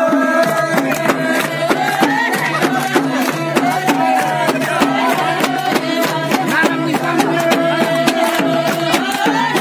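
Jhyaure folk music: madal hand drums beating a quick steady rhythm, with voices singing a held, wavering melody over them.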